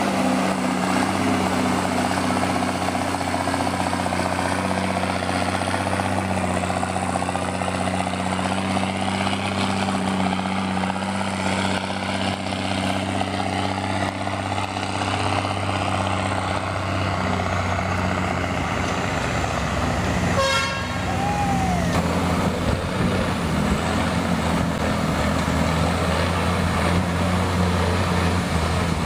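Military 6x6 truck engine running steadily under load as the truck works through mud, a low even hum with a noisy mechanical wash over it. A brief high squeal is heard about two-thirds of the way in.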